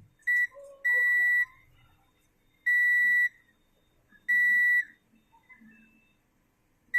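Multimeter's continuity buzzer beeping as its probes touch amplifier connections: a short blip, then three steady high-pitched beeps of about half a second each, a second or so apart. Each beep signals that the connection tested is continuous.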